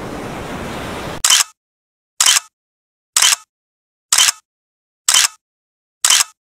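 A steady rush of surf, then six short, sharp hissing clicks about a second apart, with dead silence between them.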